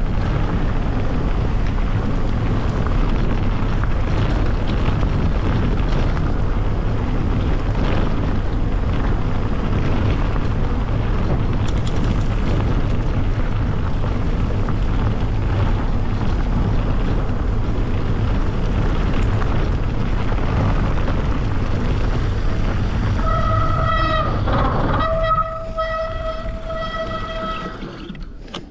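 Steady wind rush and rumble on an action camera's microphone while riding. Near the end a steady high-pitched squeal comes in, breaks off briefly and returns, as the rumble dies away to a stop.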